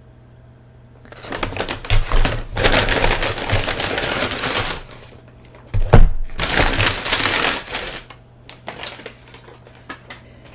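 Paper takeout bag and food wrappers rustling and crinkling in two long spells, with a sharp thump about six seconds in and a few light clicks near the end.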